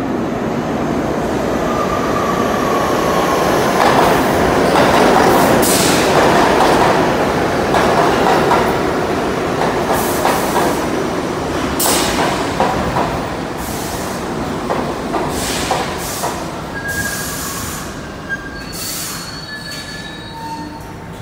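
Bombardier R62A subway train pulling into an underground station: loud wheel and rail noise with sharp clattering as the cars run past, loudest a few seconds in and then fading as the train slows. Short high squeals near the end as it comes to a stop.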